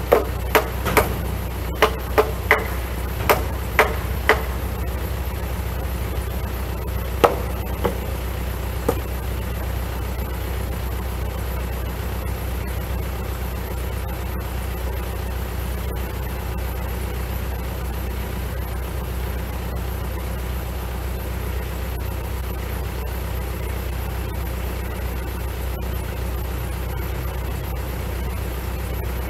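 Hammer blows on the tie-beam joint of a timber frame: about nine sharp, ringing strikes at roughly two a second, then three more spaced strikes a few seconds later. Under them, a steady low diesel idle, most likely the Kubota L4701 tractor.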